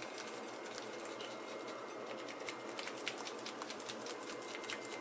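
Lemon pepper seasoning shaken from a plastic shaker onto fish fillets: faint, irregular ticking and pattering of the shaker and falling grains.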